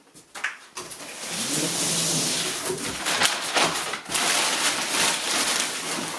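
Packaging rustling and crinkling as parts are unwrapped and lifted out of a box, starting about a second in.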